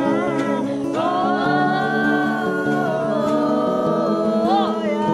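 Background music: a sung or hummed melody gliding over held chords.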